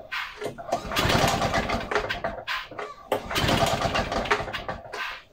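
Victa VE50 two-stroke lawnmower engine firing in two rough bursts of about two seconds each, dropping away between them, as it struggles to keep running: the mower is hard to start and won't reach high revs.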